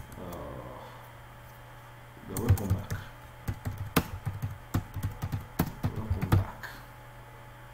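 Typing on a computer keyboard: after a quiet couple of seconds, quick runs of key clicks begin about two seconds in and stop shortly before the end.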